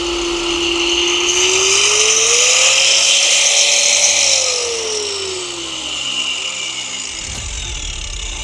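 Electric angle grinder running: its motor whine rises in pitch about a second in and holds, with a strong hiss, then falls away from about four seconds in as the grinder winds down.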